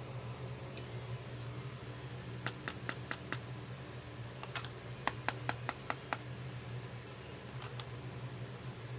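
Light plastic clicks and taps from fingers handling a hard plastic Hello Kitty compact case, in quick runs of several clicks, with a last pair near the end.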